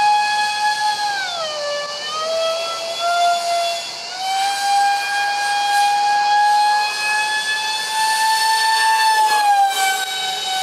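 Twin electric ducted fans of a Freewing Su-35 RC jet (five-blade rotors on 2600kv motors at 6S) screeching in flight, a high whine with a stack of overtones. The pitch drops about a second and a half in, stays lower for a couple of seconds, climbs back about four seconds in, then sags slightly near the end with the throttle. The screech carries vibration from loose fans: cheap shaft adapters and fan mounting pads that have come detached.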